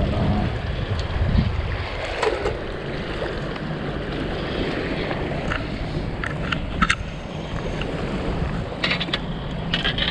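Wind buffeting the microphone over sea water washing at the shore, with a few short sharp clicks in the second half.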